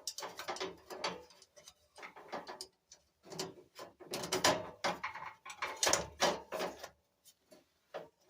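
Small screws being worked into a car's grille bezel with a screwdriver: irregular runs of small metallic clicks and scraping, pausing briefly about seven seconds in.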